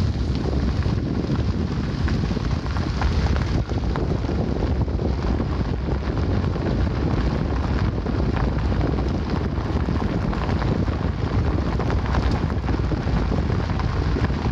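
Steady wind noise buffeting the microphone, heaviest in the low rumble, from travel along a dirt road, with a few faint ticks.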